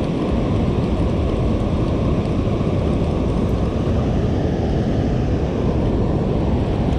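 Steady low roar of water pouring through the open spillway gates of a dam and churning in the white water below.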